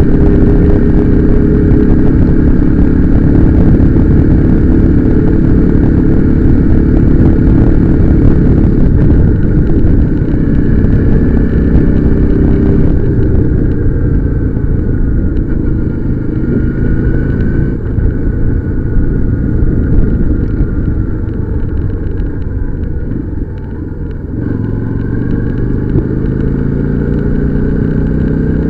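Motorcycle engine running while riding, its note rising and falling with speed. It eases off briefly about three-quarters of the way through, then pulls again.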